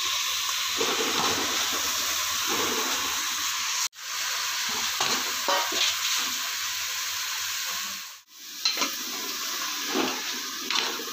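Cut okra sizzling in hot oil over fried onions and tomatoes in a pot, with a metal spoon scraping and stirring through it in the second half. The sizzle cuts out abruptly twice.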